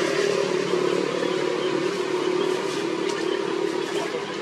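A motor vehicle's engine running with a steady hum that slowly fades.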